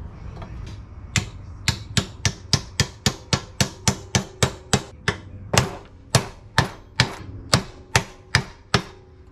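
Hammer blows on a steel trailing arm held in a bench vise, driving the trailing arm bushing into the arm. About two dozen sharp metallic strikes, each with a short ring, start about a second in. They come about three a second, then slow to about two a second in the second half.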